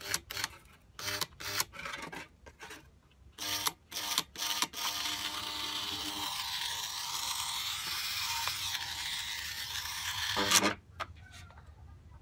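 Small electric gear motor being handled: a run of clicks and knocks, then about six seconds of steady whirring that swells near the end and cuts off sharply.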